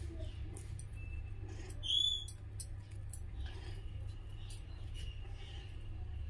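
Quiet room tone with a steady low hum. A short high squeak comes about a second in, and a louder, brief chirp about two seconds in.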